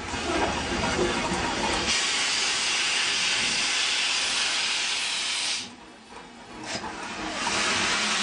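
Loud, steady hiss of steam escaping from a BR Standard Class 4 2-6-0 steam locomotive's cylinder drain cocks. The hiss cuts out for about a second past the middle, then comes back just as strong.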